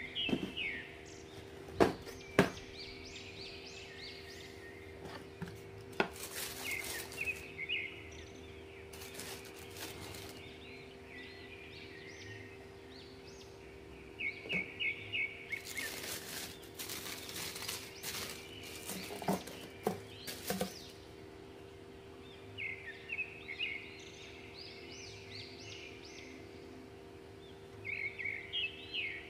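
A shoebox being handled and opened: a few sharp cardboard knocks in the first six seconds, then bursts of rustling from the clear plastic wrapping around the sneakers. Birds chirp repeatedly behind it, over a steady low hum.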